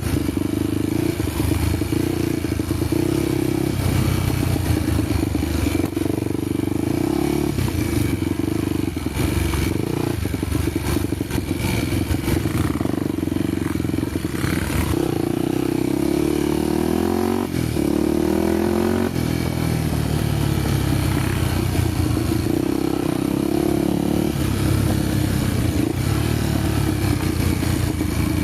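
Honda XR250 Tornado's single-cylinder four-stroke engine running while riding a dirt trail, with the engine note rising and falling a few times around the middle as the throttle changes.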